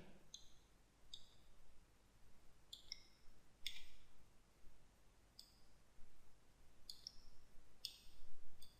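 Computer mouse button clicks, faint and sharp, about ten of them at uneven intervals, some in quick pairs.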